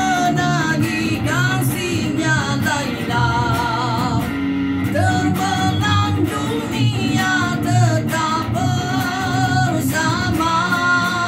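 A man singing a melody with long held notes, accompanied by an electric guitar.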